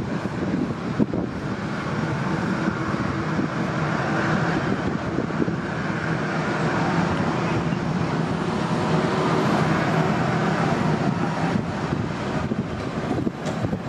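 Jet engines of an Airbus A320-family airliner running at taxi power as it rolls past, a steady rushing jet noise that swells slightly twice.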